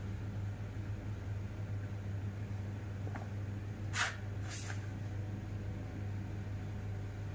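Small knife slicing through ripe papaya, with a few short scraping strokes about three to five seconds in, over a steady low hum.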